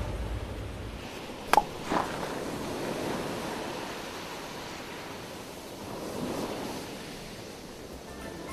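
Steady surf and beach ambience, a soft even wash. About a second and a half in come two short, sharp sounds half a second apart, the first the louder.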